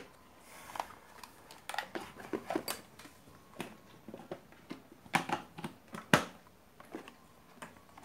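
Plastic case of an AC power adapter being pressed shut and handled on a tray: a string of irregular clicks and knocks, the loudest about six seconds in.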